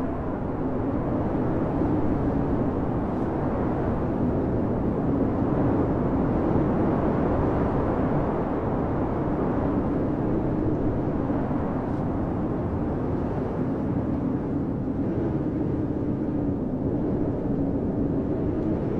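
Blizzard wind blowing steadily against a cabin, heard from inside, with a low howl that wavers slowly in pitch.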